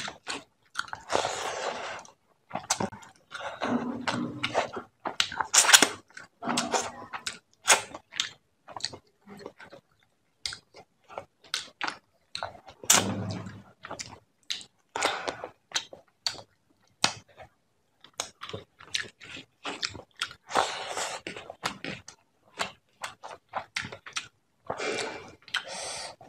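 Wet mouth sounds of a person eating rice with fish head curry by hand: chewing and lip smacks in many short clicks and smacks, along with squelching as fingers knead the rice and gravy together on a metal plate.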